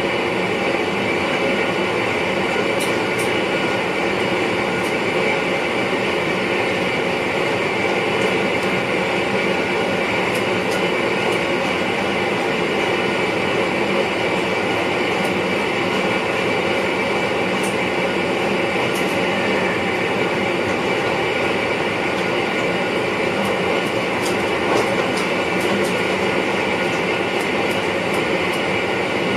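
Steady running noise inside the driver's cab of an NS VIRM double-deck electric train, with a steady high whine over the wheel-and-rail noise and scattered faint clicks, more of them near the end.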